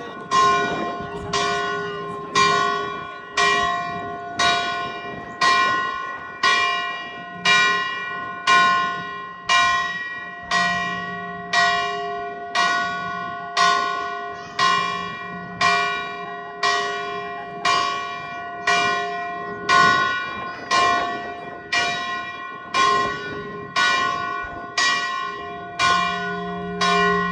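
Church bell tolling steadily, struck about once a second, each stroke ringing on into the next with the same clear tones.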